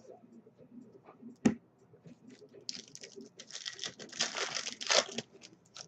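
Foil trading-card pack wrapper crinkling and tearing as it is ripped open. There is a sharp click about one and a half seconds in, and the crinkling runs for about two and a half seconds from near the middle.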